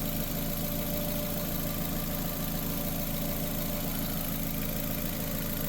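2006 Nissan Sentra's 1.8 L four-cylinder engine idling steadily while its cooling system is burped of air after a water pump replacement.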